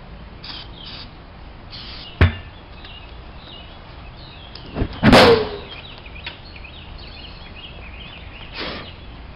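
A few short hisses of starting-fluid spray and a sharp click, then about five seconds in a loud whoosh-bang as the ether vapour inside the unseated tyre ignites, blowing the bead out onto the steel rim. Birds chirp throughout.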